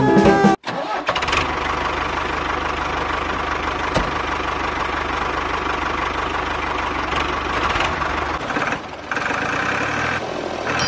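A miniature tractor's motor running steadily, with a faint steady whine. It dips briefly about eight and a half seconds in and then runs on.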